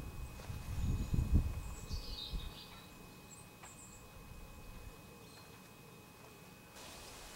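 Birds chirping a few times, high-pitched, about two seconds in and again around three and a half seconds, over quiet outdoor background. A low rumble fills the first two seconds or so, then dies away.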